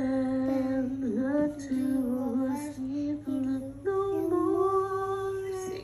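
A voice singing a wordless vocal exercise in held notes, a lower run that steps slightly up and down, then a higher note about four seconds in, held until it stops near the end.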